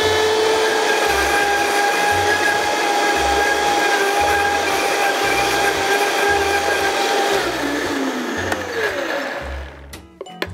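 Countertop blender running at full speed, puréeing beetroot and water into a sauce: a loud, steady motor whine. About eight seconds in it slows with a falling pitch and stops shortly before the end.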